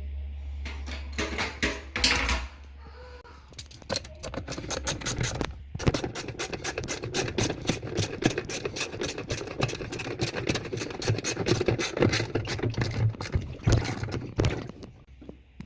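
Rapid, uneven scratching and clicking of hard washing-machine parts being handled, running for most of the time after a low hum at the start.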